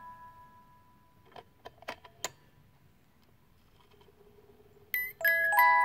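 Reuge 22-note cuckoo clock music box movement: the last notes plucked from its steel comb ring on and fade, then a few small mechanical clicks come from the movement about a second and a half in. After a quiet gap, the comb starts playing bright plucked notes again near the end.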